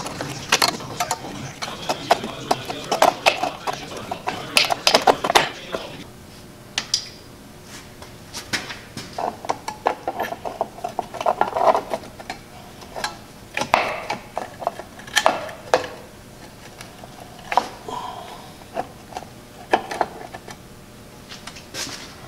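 Light metal clinks and clanks of rear drum-brake hardware being fitted by hand: brake shoes, springs and a tool knocking against the steel backing plate. The clicking comes in irregular clusters, busy for the first five seconds or so, then scattered.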